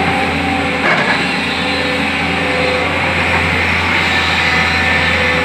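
JCB backhoe loader's diesel engine running steadily under work, with a single clunk about a second in.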